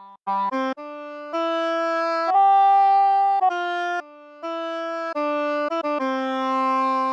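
A sampled solo wind instrument from a brass SF2 SoundFont plays a single-line melody of separate notes. One higher note is held for about a second, there is a quick run of short notes near the end, and a lower note is held at the close.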